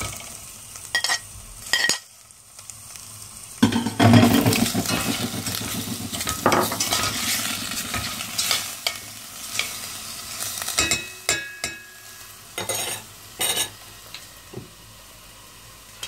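Raw beef chunks frying with chopped onion in oil in a stainless steel pot: loud sizzling that starts sharply about four seconds in and slowly dies down, while a spoon stirs and scrapes against the pot. A few sharp knocks of the spoon on the pot come near the end.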